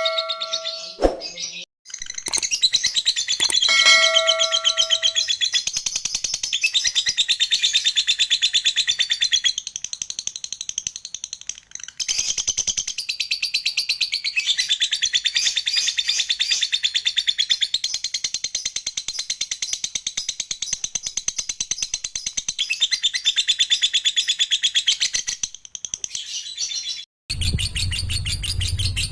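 Lovebird ngekek: a long, fast, rattling chatter in sustained runs, broken off briefly a few times. A bell-like ding rings near the start and again about four seconds in.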